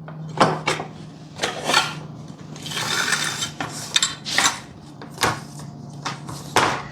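Carrier piece and toothed belt being pushed through a smart electric curtain track: a string of short scraping and rubbing strokes, with a longer scrape about three seconds in.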